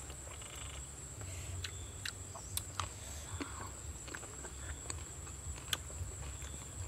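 Scattered light clicks and taps of food being handled and cut with a cleaver at a table, over a steady high-pitched whine and a low rumble.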